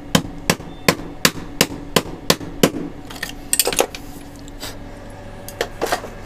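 Repeated hammer strikes knocking a new 6004 ball bearing down into its seat in a wet grinder's housing, about three sharp blows a second, then a pause and a few more taps near the end.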